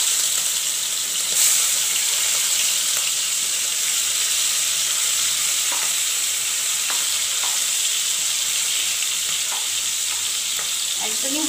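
Prawns frying in hot mustard oil in a wok, a steady sizzle that swells briefly about a second and a half in, with a few light taps of a metal spatula as they are turned.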